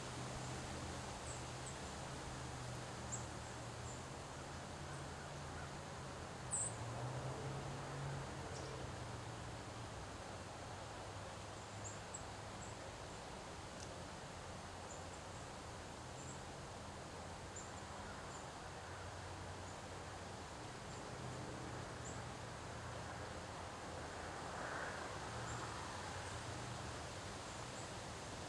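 Autumn wind blowing through trees, leaves rustling steadily, with a stronger gust swelling near the end. Faint high chirps sound now and then over a low steady hum.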